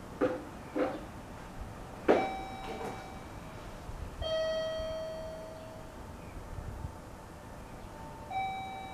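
Train approach indicator chime: a two-note electronic ding-dong, a higher note then a lower one, each ringing and fading, repeating about every six seconds to warn that a train is approaching. A few short sharp knocks sound near the start.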